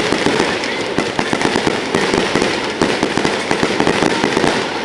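Fireworks display going off in a dense, unbroken volley of bangs and crackling reports, many a second.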